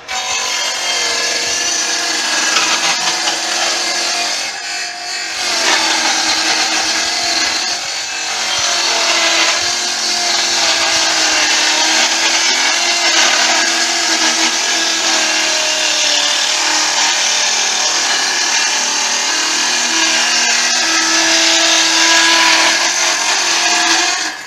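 Electric power tool running under load, its whine wavering in pitch as it bites into the work.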